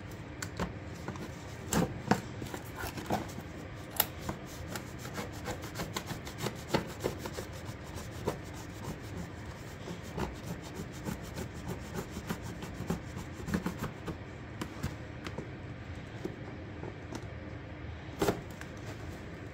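A flat-bladed scraper dragged in short, irregular strokes over the back of a plastic door moulding, scraping off old sealer, with a few louder scrapes and knocks about two and four seconds in and near the end.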